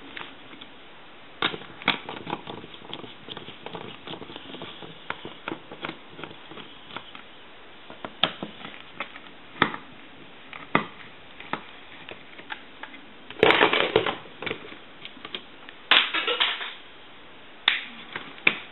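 Scattered clicks and taps of small plastic telephone parts being handled while an AT&T 210 Trimline phone is taken apart, with two louder, longer bursts of handling noise about two-thirds of the way through.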